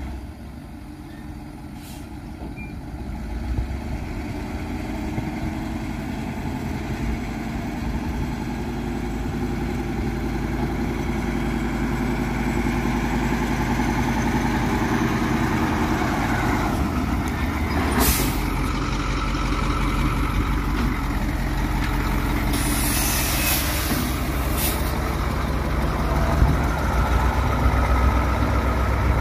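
Caterpillar 3208 V8 diesel engine of a 1981 Ford 8000 truck running, growing gradually louder. Short hisses of air from the truck's air brake system break in about two-thirds of the way through, and again a few seconds later.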